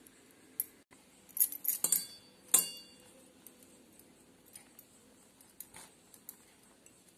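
A few light clinks and knocks on a stainless steel mixing bowl in the first three seconds, the loudest with a brief metallic ring, then only faint ticks and soft rubbing as a hand mixes water into flour for dough.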